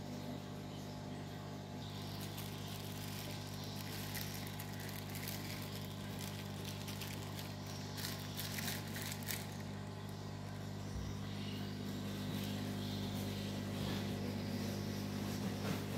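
Aquarium pump humming steadily, with a few faint crackles about halfway through.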